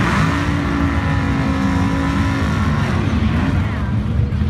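Drag race car engines running at the starting line: held at steady high revs for about two and a half seconds, then dropping and blipping up and down.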